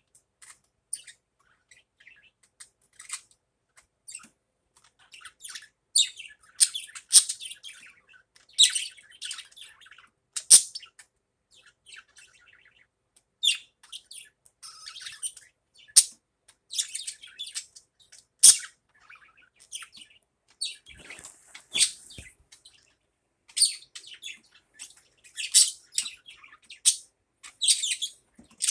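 Budgerigar chirping and warbling in short, irregular bursts of high-pitched chatter, with a few sharp clicks among them.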